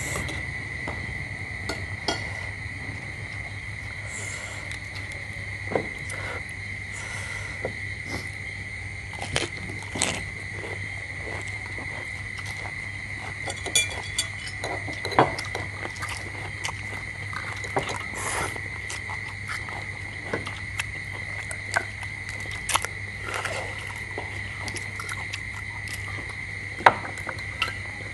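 Eating at a table: scattered small clicks and taps of balut eggshells being cracked and peeled and spoons touching plates and bowls, a few sharper than the rest. Underneath runs a steady high-pitched whine and a low hum.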